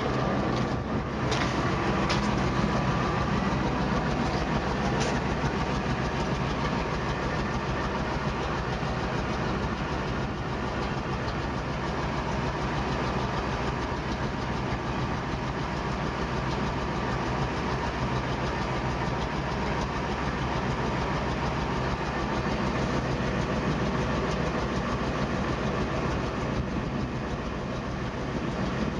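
Truck engine idling, with the fast, even puffing tick of an exhaust leak. A few sharp clicks come in the first few seconds.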